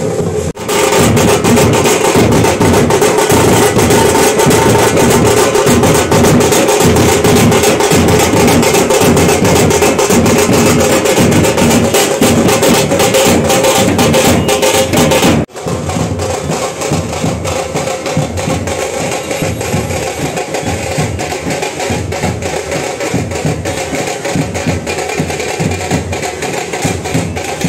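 Street drummers beating hand-carried drums in a fast, dense rhythm. About halfway through there is an abrupt cut, after which the drumming goes on a little quieter.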